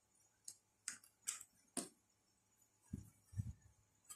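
Faint handling noises on a workbench as a hand magnifier and small tools are moved about. There are four light clicks in the first two seconds, then two soft low thumps about three seconds in, and another click at the end.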